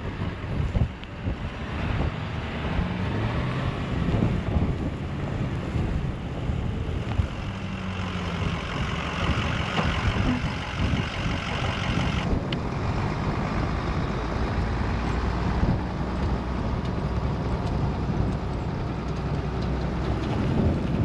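A vehicle engine running, its pitch shifting up and down as it works, with strong wind buffeting the microphone throughout.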